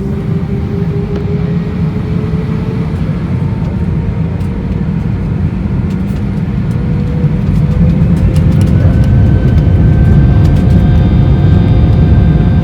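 Airbus A319 jet engines heard from inside the cabin as they spool up for takeoff: a heavy rumble with whining tones rising slowly in pitch, growing louder about eight seconds in, with faint light rattles.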